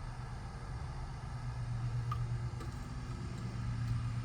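A steady low mechanical hum from a running motor or engine, with a couple of faint ticks about two seconds in.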